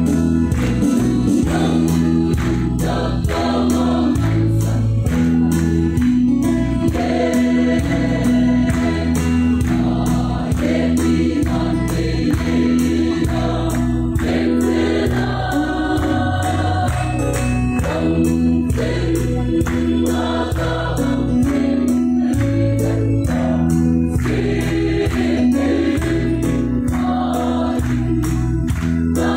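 Mixed choir of young men and women singing a gospel hymn through a PA, over an accompaniment whose low bass notes change about once a second.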